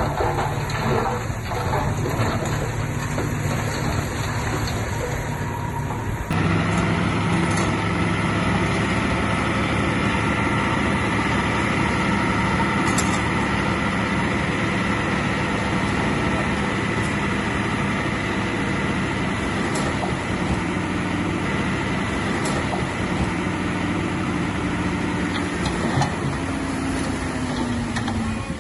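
Diesel engine of heavy earthmoving machinery running steadily. The sound changes abruptly about six seconds in, and a tone falls in pitch near the end as the engine slows.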